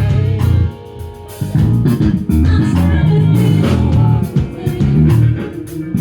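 Live band playing an instrumental passage, with a heavy bass guitar line, guitar and drum kit; the band drops out briefly about a second in, then comes back in.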